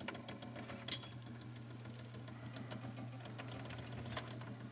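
Rock-Ola 496 jukebox record mechanism running with a steady hum and scattered light clicks, a sharper click about a second in and another near the end. The mechanism is running on instead of stopping where it should.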